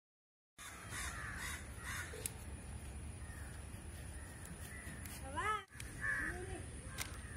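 Crows cawing a few times over a steady low background; the clearest caw comes a little over five seconds in. The sound cuts in abruptly just after half a second in.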